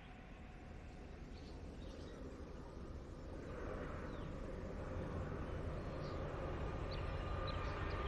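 Diesel freight locomotives in the distance, a low rumble growing steadily louder as the train approaches. A few short bird chirps sound over it.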